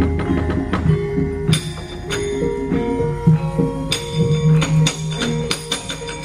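Javanese gamelan playing: held metallophone notes under a run of sharp metallic clattering strikes, which come thicker from about a second and a half in.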